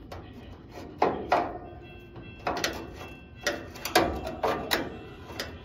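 Screwdriver clicking and knocking against a turn-signal lens and the chrome grille of a Chevrolet C10 as the lens is screwed in: several sharp clicks with short ringing tails, irregularly spaced.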